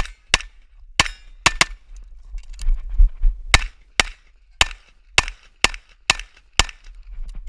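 Handgun fired rapidly at close range in quick pairs, about a dozen shots. After the first few there is a pause of about two seconds, then the pairs come every half second or so.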